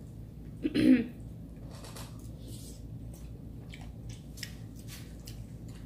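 Close-up eating sounds: soft chewing and mouth noises with small clicks of metal spoons on paper plates, and one short voice sound about a second in.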